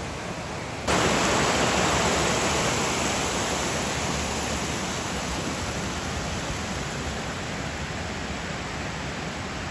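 Steady rushing of running water, jumping suddenly louder about a second in and then easing off slightly.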